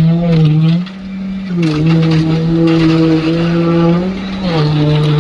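Engine-driven concrete pumping machinery running with a steady hum. Its pitch steps up and down slightly, with short dips about a second in and again near the end.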